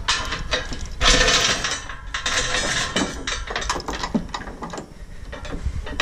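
Steel tie-down chain rattling and clinking on a flatbed trailer's wooden deck, with its grab hook knocking as it is handled. A run of sharp clinks and knocks, busiest about a second in.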